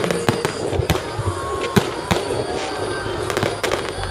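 Aerial fireworks shells bursting in a rapid, irregular string of sharp bangs, with crackling between them.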